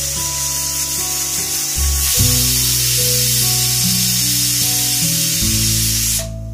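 Pressure cooker whistle letting off steam in a long, steady hiss that cuts off suddenly near the end, over background music.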